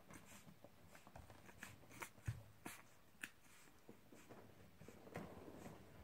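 Faint rustling, small clicks and soft snuffles from a pile of two-week-old puppies stirring in their sleep on a blanket, with one soft thump a little over two seconds in.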